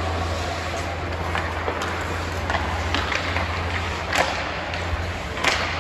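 Ice hockey play in an arena: a steady low hum and a noisy wash, with scattered clicks and knocks of sticks and puck. The two loudest knocks come about four and about five and a half seconds in.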